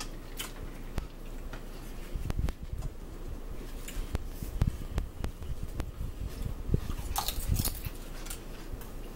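Eating sounds at a table: food being handled and chewed, with scattered small clicks and knocks and a few short crackly rustles about seven seconds in.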